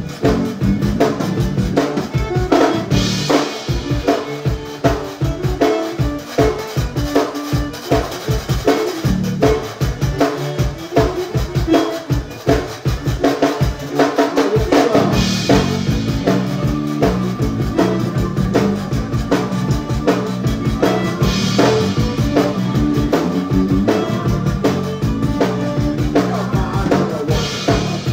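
Live zydeco band playing an instrumental passage, led by a drum kit's steady driving beat under a bass line. A cymbal crashes every several seconds, and the low end fills out about halfway through.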